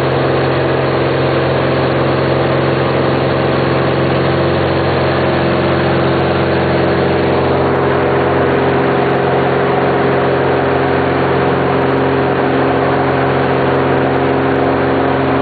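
Cirrus SR-20's single piston engine and propeller running steadily in flight, heard from inside the cabin.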